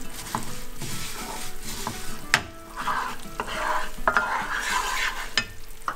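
Wooden spatula stirring and scraping sesame seeds through melted jaggery in a nonstick frying pan, with a light sizzle. The spatula knocks sharply against the pan a few times, loudest a little over two seconds in.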